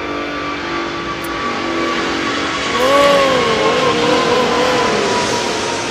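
Airbus A380's four Rolls-Royce Trent 900 engines at takeoff thrust as the jet climbs out directly overhead: a loud, steady jet roar with a high whining tone through it, swelling to its loudest about three seconds in. A wavering tone rises and falls over the roar in the middle.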